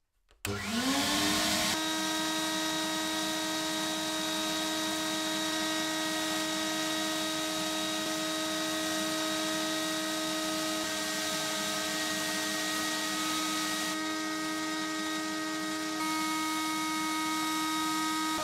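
Sandblasting cabinet switched on: its motor spins up with a rising whine over about a second and then runs steadily, under the hiss of the abrasive blast stripping rust from the stove's steel parts.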